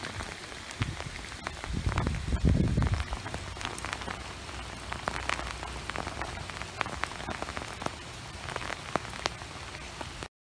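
Steady rain falling, with many sharp drop hits close to the microphone and a low rumble about two to three seconds in; the sound cuts off abruptly near the end.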